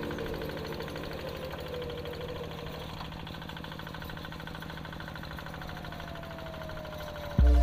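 Tractor engine running steadily with a fast, even chugging rhythm. Music cuts in abruptly near the end.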